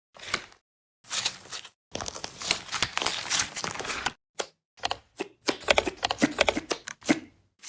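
Crinkling and tearing of a crinkly material, in bursts of dense small crackles broken by abrupt silent gaps.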